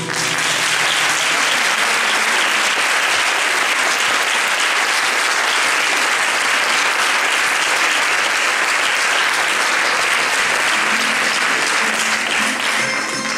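Audience applauding steadily and at length. A band of plucked string instruments starts up near the end.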